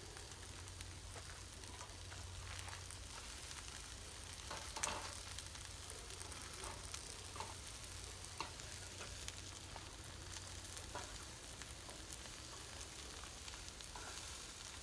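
Onions sizzling as they fry in a small pan over a propane burner, with a few short clicks of metal tongs handling the food on the grate.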